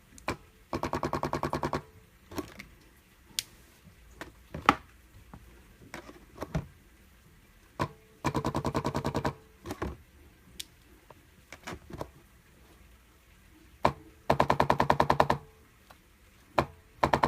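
Electric chiropractic adjusting instrument firing four bursts of rapid thrusts, each about a second long at roughly ten thrusts a second, with single clicks and knocks in between.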